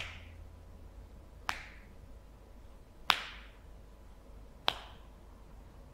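A man's slow, steady tapping: four sharp single taps about a second and a half apart, each with a brief echo.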